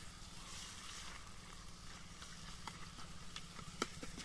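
A spoon stirring food in a metal pan over a wood fire: a few sharp, scattered clicks, the loudest a little under four seconds in, over a steady low rumble.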